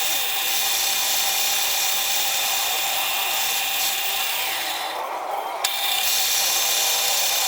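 Metal lathe running while a boring tool cuts a taper into a diesel engine flywheel's crankshaft bore: a steady machine whine with cutting hiss. The hiss drops out for a moment a little past the middle and comes back with a sharp click.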